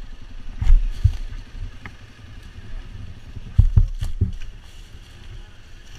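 ATV engine idling as a steady low rumble, with several heavy low thumps on the microphone: a pair about a second in and a cluster of three or four a little before four seconds in.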